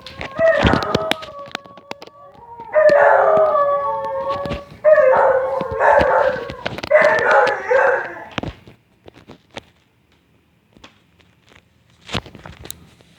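Dog howling in a run of long, wavering, pitched calls that stop about eight and a half seconds in, followed by a few faint clicks.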